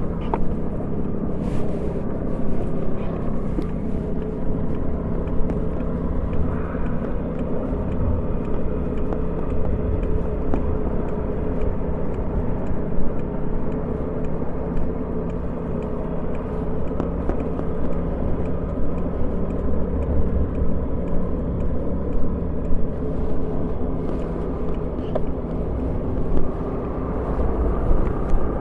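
Honda Gyro scooter engine running steadily, its pitch drifting only slightly, over a low rumble of wind on the microphone.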